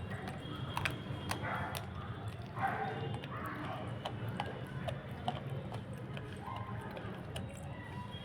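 Pit bull puppy chewing raw meat, with short irregular clicks of teeth.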